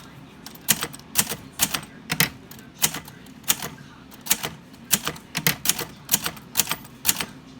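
Underwood Golden Touch typewriter being typed on one key at a time with one finger: a string of sharp, unevenly spaced keystrike clacks, about two a second.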